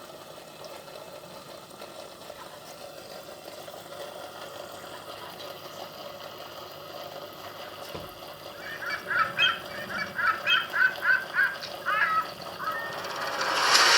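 A faint knock, then a run of short, rapid animal calls, about three a second, starting about nine seconds in and lasting some four seconds.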